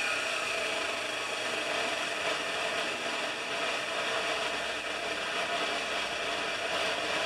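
Chop saw cutting through steel flat stock, a steady grinding whine of the blade biting into the metal, which drops off right at the end as the cut finishes.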